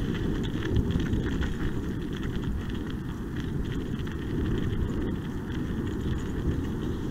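Kickbike tyres rolling over a gravel trail, a steady low rumble with faint crackles, mixed with wind rumbling across the microphone.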